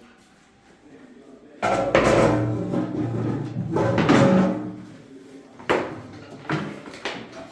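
Music that starts about a second and a half in, with several strong struck notes that ring and fade.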